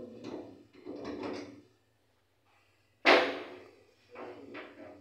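Knocks and clatter from working on a bathtub's waste fitting: handling noise in the first second and a half, one sharp bang about three seconds in, then a couple of lighter knocks.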